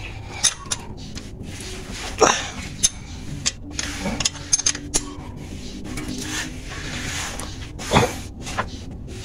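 Scattered metallic clinks and knocks of tools and parts being handled under a car while a starter motor is fitted. The loudest come about two seconds in and near the end, over a faint steady low hum.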